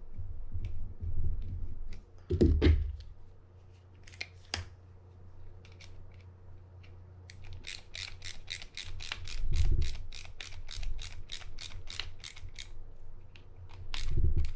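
Small screwdriver driving the bail arm screw into a spinning reel's bail arm, with handling knocks about two and a half seconds in. About halfway through comes a run of quick, even clicks, about five a second for some five seconds.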